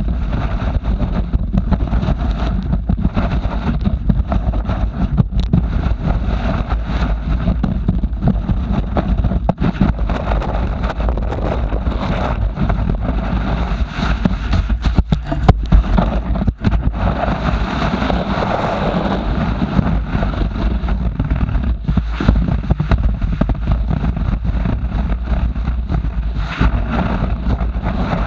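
Skis sliding and scraping over packed snow, picked up by a camera mounted on the ski, with wind buffeting the microphone: a loud, steady low rumble broken by many small knocks and clicks.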